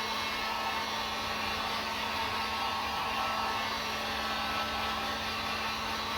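Harbor Freight electric heat gun running steadily, its fan blowing a rush of air over a steady low hum, heating butyl-backed foil sound deadener to soften it.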